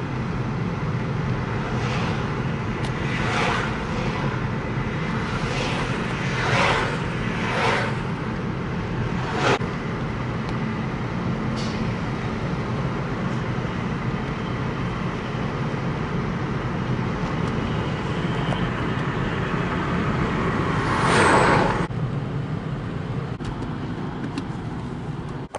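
2008 Toyota Auris 1.6 manual being driven, heard from inside the cabin: steady engine and road noise. Several brief swells come in the first ten seconds, and a louder one about three-quarters of the way through.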